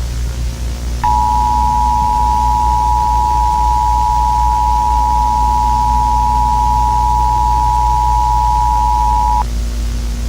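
Emergency Alert System attention signal: two steady tones of about 853 and 960 Hz sounded together, starting about a second in and cutting off sharply some eight seconds later, over a steady low hum and hiss.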